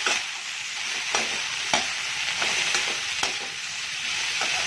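Chopped cluster beans frying in a metal kadhai, a steady sizzle, with a perforated spatula scraping and clicking against the pan several times as it stirs the vegetables and spices.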